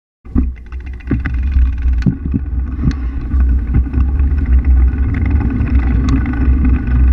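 A bicycle rolling over rough ground, heard through a camera mounted by the knobby rear tyre: a loud, steady deep rumble from the tyre and frame with sharp rattling knocks about once a second.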